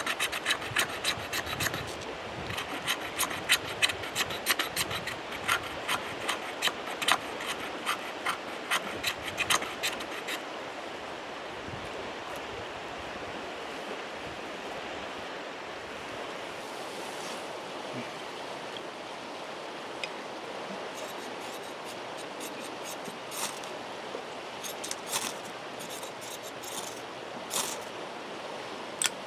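Fixed-blade knife shaving curls off a split piece of wood in quick repeated scraping strokes for about the first ten seconds. Then the steady rush of a creek, with a few light clicks of sticks being handled near the end.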